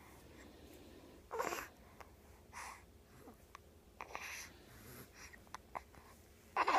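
A pet hiccuping: four short, wheezy hiccups spaced a second or two apart, each dropping in pitch, the last the loudest.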